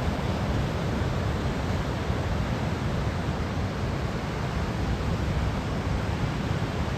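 Steady rush of ocean surf with wind buffeting the microphone: typhoon-driven waves breaking on the beach.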